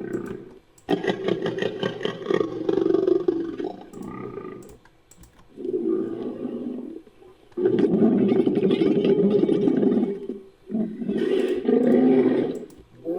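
Designed Edaphosaurus creature calls, mixed from camel, bull and walrus recordings: a run of about six low, rough roaring calls, each one to three seconds long, with short pauses between them.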